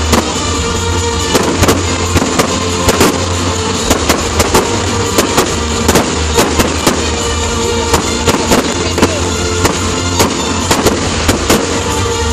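Aerial firework shells bursting in a display, many sharp bangs and crackles several a second, with music playing loudly alongside.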